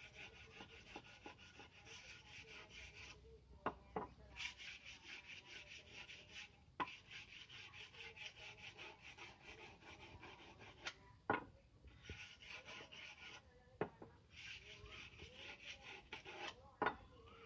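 A steel billhook blade being sharpened by hand, with runs of rapid, even rasping strokes broken by short pauses. A few sharp metallic clinks fall in the pauses.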